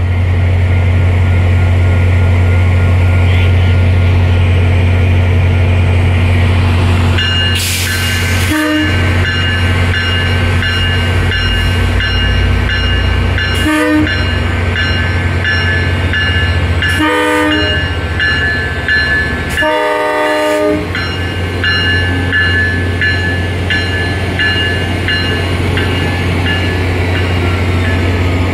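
MBTA EMD GP40MC diesel locomotive moving slowly through a grade crossing, its engine rumbling steadily, sounding its horn in four blasts spread over about twelve seconds, the first and last longer than the middle two.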